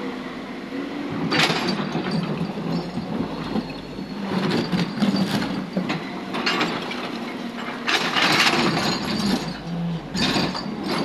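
JCB tracked excavator's diesel engine running steadily while its steel bucket digs into broken concrete and rock rubble, with several separate bursts of scraping, grinding and clinking of stone against metal.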